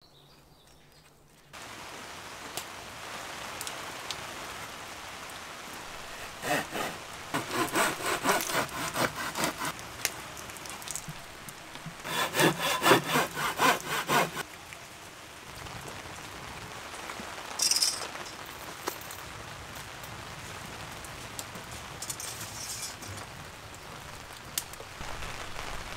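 A hand saw cutting wood in two bouts of quick back-and-forth strokes, each a few seconds long, followed later by a couple of shorter rasps.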